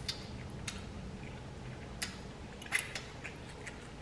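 A mouthful of spicy ramen noodles being chewed close to the microphone: scattered wet mouth clicks and smacks, with a louder smack a little under three seconds in.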